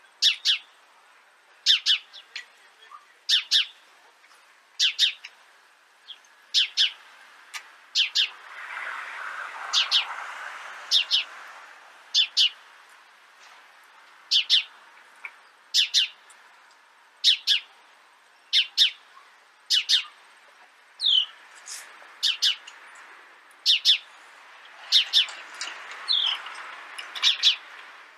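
Eurasian tree sparrows chirping: short, sharp chirps, mostly in quick pairs or threes, repeated about every second and a half, with a softer hiss rising and fading about a third of the way in and again near the end.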